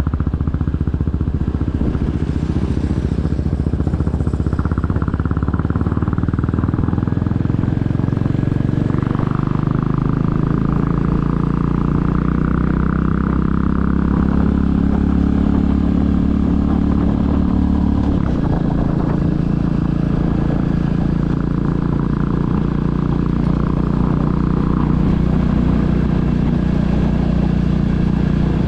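The single-cylinder engine of a 2022 Royal Enfield Classic 350 running under way. Its pitch climbs steadily as it pulls through a gear, drops sharply at a gear change about two-thirds of the way in, then holds steady.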